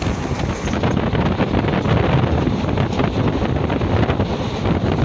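Passenger train carriage in motion: wind buffeting the microphone over the steady rumble and rattle of the wheels on the rails.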